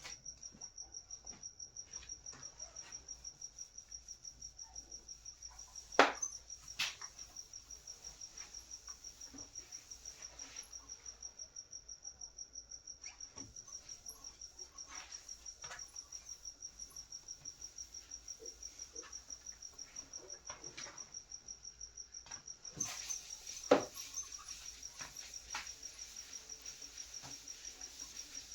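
A cricket chirping: a steady, evenly pulsing high trill. A few sharp clicks and taps sound over it, the loudest about six seconds in and again near the end.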